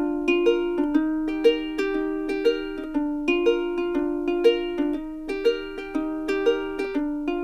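Background music: a bright plucked-string tune with notes struck about twice a second.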